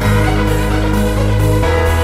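Background music with sustained bass notes and held chords; the chord changes near the end.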